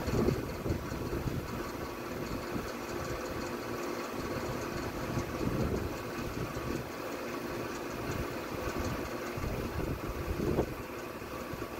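A steady low mechanical drone with a faint constant tone, like a motor running, with no bird calls.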